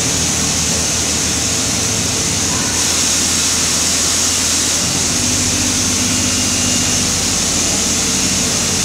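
Steady drone of drilling-rig machinery on an offshore platform's drill floor: a low hum under a strong hiss, with a second faint tone joining about five seconds in.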